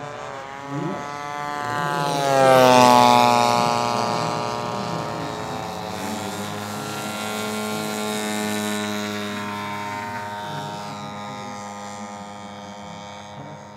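Engine of a large-scale radio-controlled Spitfire model running hard as it rolls past on the grass. Its note rises in pitch and grows loudest about three seconds in, then drops in pitch and settles into a steadier drone that fades away.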